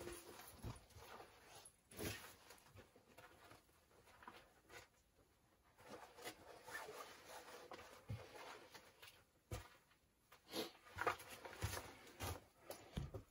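Faint rustling of winter clothing as jackets and hats are pulled on, with a few soft clicks and knocks scattered through.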